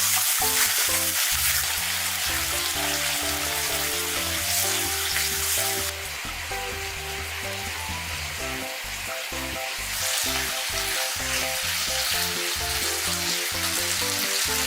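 Food sizzling as it fries in a pan, with background music playing. The sizzle drops lower for a few seconds in the middle.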